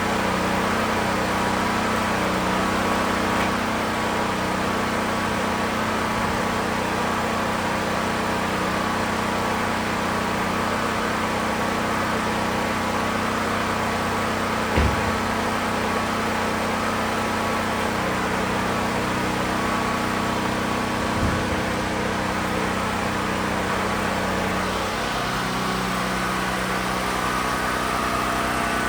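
A steady engine-like hum runs throughout, with two short, sharp knocks, one about halfway through and another some six seconds later.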